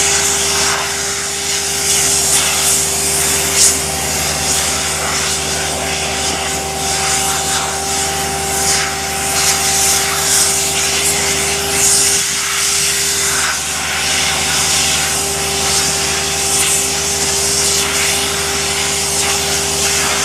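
Tracked vacuum paver-laying machine running steadily: its engine and vacuum pump give a constant hum under a strong rushing hiss of suction air.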